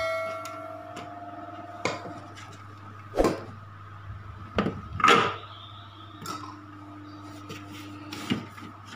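Hard plastic parts of a food processor clicking and knocking as the bowl is twisted and lifted off the motor base, with a short ringing note fading away at the start.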